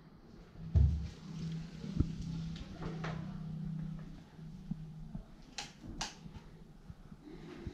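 A wooden interior door pushed open with a low thump about a second in, followed by a low steady hum. Two sharp clicks come a little past the middle.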